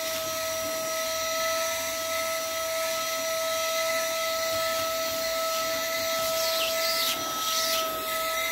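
Handheld cordless vacuum running with a steady whine as its crevice nozzle is drawn over fabric couch cushions, with a couple of short swishes near the end.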